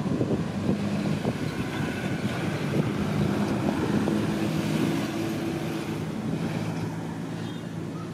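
A steady motor hum, with wind buffeting the microphone.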